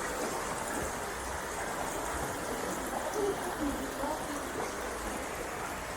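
Steady rush of a running stream, with a few faint short tones about halfway through.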